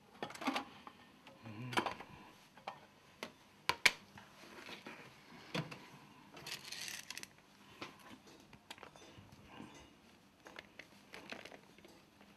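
Plastic food tub being lifted out of a microwave and handled: scattered light clicks and knocks of plastic, with a brief scraping rustle about seven seconds in.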